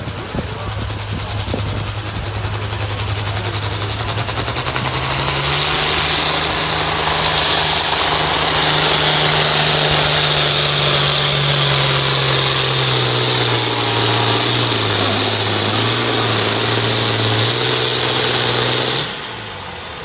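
Turbocharged International Harvester diesel farm tractor at full throttle pulling a weight-transfer sled. Its engine note climbs, then sags slowly under the growing load, with a high turbo whine rising at the start. The engine cuts off sharply about 19 seconds in as the pull ends, and the turbo whine falls away.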